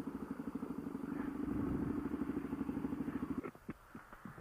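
Motorcycle engine idling with an even, fast pulsing beat, then switched off about three and a half seconds in. A few light clicks follow.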